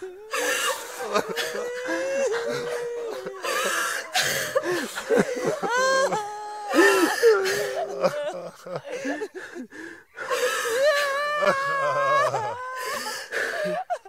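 A group of men and women crying together: overlapping sobs, whimpers and wavering wails, broken by gasping, wheezy breaths.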